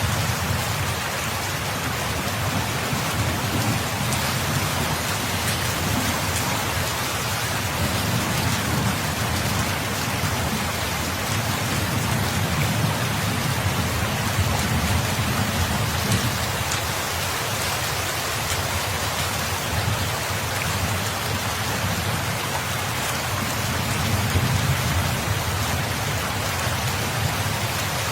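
Steady, heavy rain pattering without a break, with a low rumble underneath that swells and fades.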